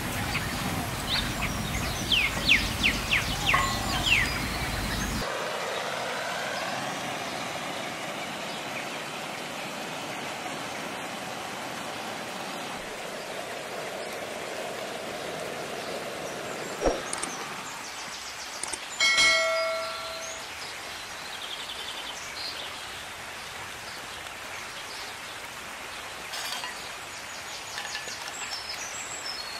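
Birds chirping over outdoor background for the first few seconds, then a quieter steady outdoor background with light handling of cookware. About 19 s in a metal cooking utensil clangs once and rings briefly.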